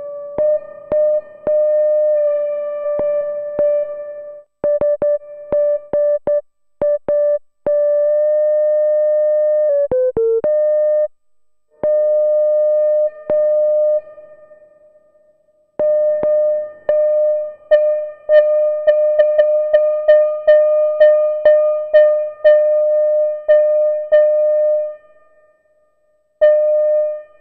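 Moog Grandmother analog synthesizer playing a bassoon-like patch, holding and re-sounding a single reedy note. The pitch dips downward around the middle, and later the note repeats quickly, about twice a second, for several seconds.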